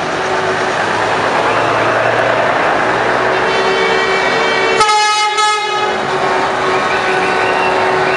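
Trucks driving past in a procession with engines running and air horns sounding, steady horn tones over the engine noise, and one louder, clearer horn blast about five seconds in.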